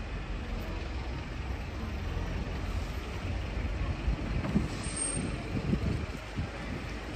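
Steady road-traffic rumble from passing vehicles, with a few low thumps between about four and six seconds in.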